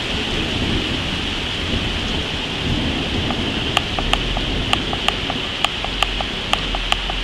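Steady rain with a low thunder rumble. From about three and a half seconds in, a regular sharp ticking in pairs joins it, about one pair a second.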